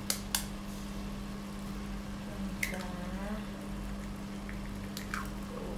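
Eggs being cracked into a stainless steel pot of tomato sauce: a few sharp taps of shell on the pot, with raw egg dripping and plopping into the sauce.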